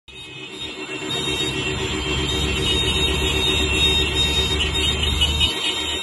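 Many motorcycle horns held down together in one long, overlapping blare over the low rumble of a slow motorcycle convoy, growing louder over the first second or so. It is a memorial honk by couriers for a fellow rider killed in a crash.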